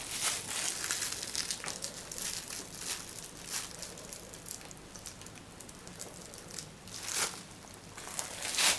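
Thin plastic bag crinkling and rustling in the hands as a sour cream and mayonnaise mix is squeezed out of it, with two louder, sharper rustles near the end.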